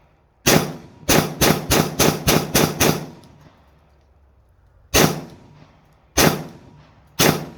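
Glock 40 10mm pistol firing: a rapid string of eight shots, about three a second, then three more single shots spaced about a second apart.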